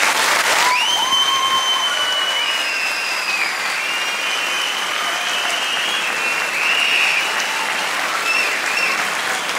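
Audience applauding, steady dense clapping, with high sustained tones that waver in pitch running over it.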